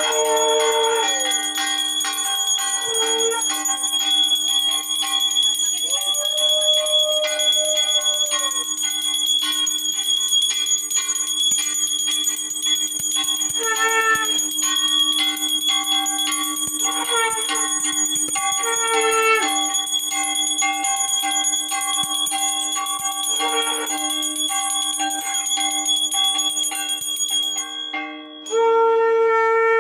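Puja hand bell rung continuously during an aarti, with several horn-like blasts of a conch shell on top of it: a long arching one about a quarter of the way in, short ones through the middle, and a strong one near the end.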